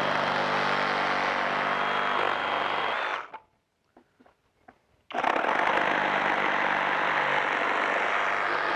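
FLEX 24V cordless reciprocating saw cutting through wooden lumber, its blade sawing steadily. It stops about three seconds in, with a few faint clicks during a pause of about two seconds, then starts again and keeps cutting.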